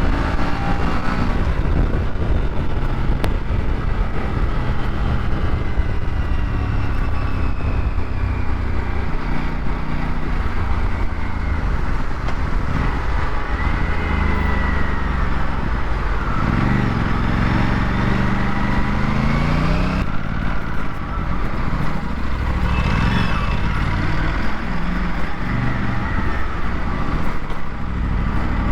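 Aprilia RS 457's parallel-twin engine running on the road among traffic, with a heavy wind rumble on the microphone. A little past halfway the engine note climbs as the revs rise, then drops back.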